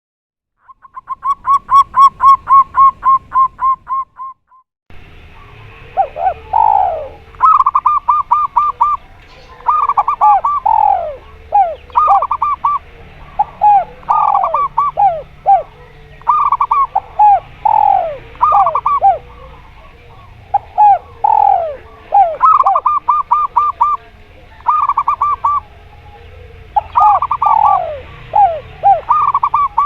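Zebra dove (perkutut) and spotted dove (derkuku) calling in repeated cooing phrases: bursts of quick clipped notes alternating with falling coos, every couple of seconds. It opens with a separate quick run of pulsed notes that swells and fades, before a low background hum comes in about five seconds in.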